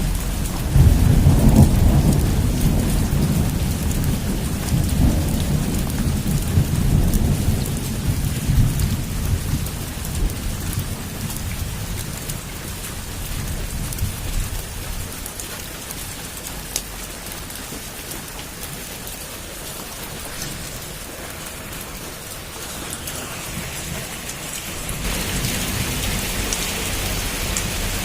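Heavy rain drumming steadily on a rooftop, with a long roll of thunder that breaks about a second in and rumbles away over the next several seconds. Near the end the rain grows louder and hissier.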